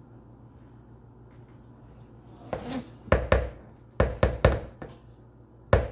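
Knocks and thuds of kitchenware handled on a hard surface. After a low steady hum for about two and a half seconds, about eight sharp knocks follow in quick groups.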